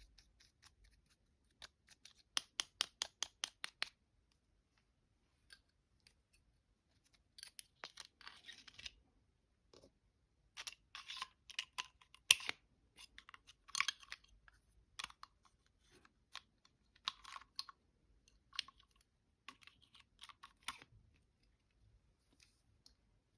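Fingernails tapping and scratching on small cosmetic containers: a quick even run of taps about two seconds in, then scattered clusters of crisp taps and scratches.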